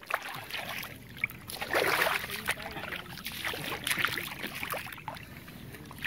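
Shallow water splashing and sloshing as a large tropical gar (pez machorra) is released by hand and stirs the water. The splashes come irregularly, loudest about two seconds in and again near four seconds.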